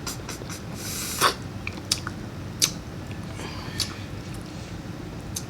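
A person chewing and smacking food close to the microphone, with a handful of sharp mouth clicks, the loudest about a second in.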